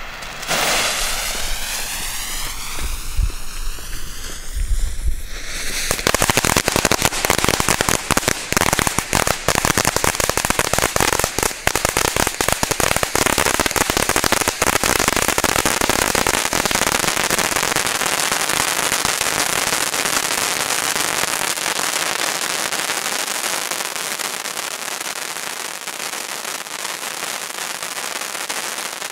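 Large Pyroland Queen of Welding fountain firework (cone volcano) going off. It starts with a hissing spray just after ignition, then from about six seconds in turns to a dense, continuous crackling that eases a little near the end.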